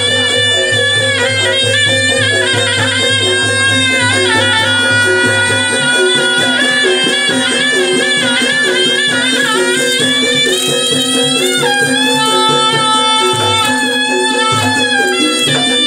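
Traditional music: a reedy wind instrument plays a wavering, ornamented melody over a steady drone, with an even drum beat that stops about six seconds in.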